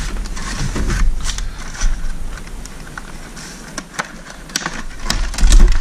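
Metal engine parts and tools being handled on a workbench: scattered clicks and clinks of metal, with heavier bumps near the end that are the loudest part.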